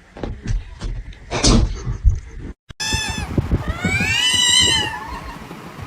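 Scattered knocks and rustling for the first two seconds or so, then a domestic cat meowing: a short call followed by one long, drawn-out meow that rises and then falls in pitch.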